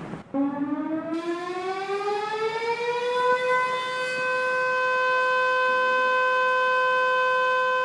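Emergency alert siren winding up: one tone rises in pitch for about three seconds, then holds steady and loud.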